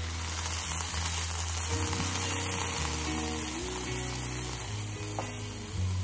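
Soaking liquid poured into a hot wok of stir-fried vegetables, sizzling and spitting as it hits the pan, then bubbling on while the vegetables are stirred.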